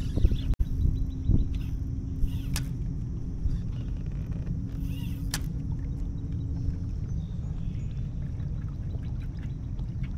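Fishing kayak on the river: a steady low rumble with a faint steady hum, and two sharp clicks a few seconds apart.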